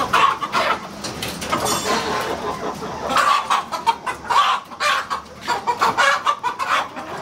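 Several caged native country chickens clucking, many short calls overlapping and coming irregularly throughout.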